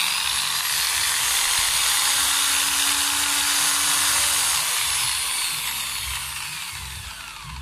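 Generic electric angle grinder running unloaded at full speed, then switched off about five seconds in and winding down with a falling whine. Off load it spins normally; its fault, a lack of power, shows only when grinding metal.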